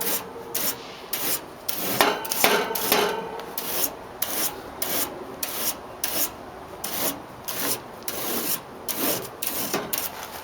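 A small fin comb raked repeatedly through an air-conditioner condenser's bent cooling fins, scraping along the metal fins in quick strokes, about two a second, straightening them.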